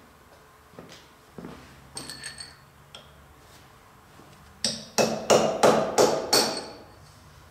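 Hammer striking the steel spindle nose of a horizontal boring mill: six ringing metal blows in quick succession, about three a second, after a few lighter metallic clinks.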